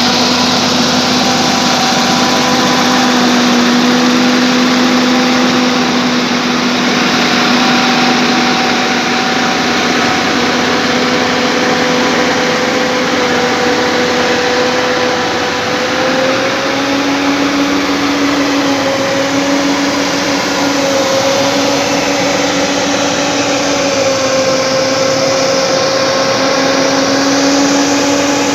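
Bulldozer's diesel engine running steadily, its hum stepping up slightly in pitch about halfway through.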